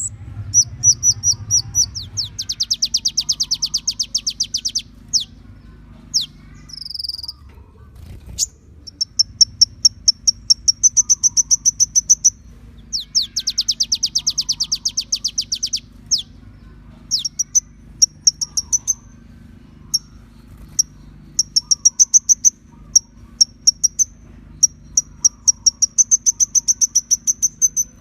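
Kolibri ninja sunbird song: rapid, high-pitched trills of about ten notes a second in repeated bursts, broken by single sharp chirps and short whistles, over a steady low hum.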